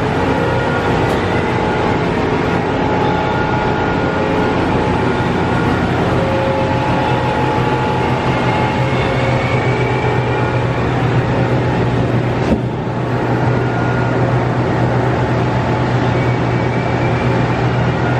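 Index MS-22C six-spindle automatic screw machine running: a steady mechanical hum with several steady tones over it, with cutting oil spraying through the tooling. Faint short rising whines come now and then, and a single sharp click sounds about twelve seconds in.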